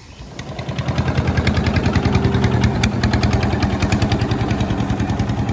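A small engine running. It grows louder over the first second, then stays steady with a fast, even pulsing beat.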